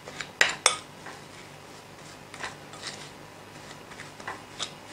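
A hand kneading raw minced beef with dry spices in a glass bowl: soft squishing and rubbing, with a few sharp clicks against the glass, two close together about half a second in and fainter ones later.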